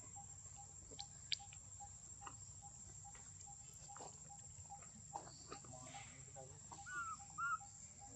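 Two short high squeaks from a baby macaque near the end, a small cry, over a steady high insect hum and a faint regular ticking call. A couple of sharp clicks about a second in.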